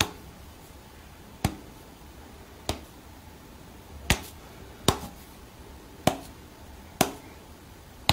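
Finger snaps, eight sharp single snaps at uneven intervals of about a second, each with a brief ring in a small room.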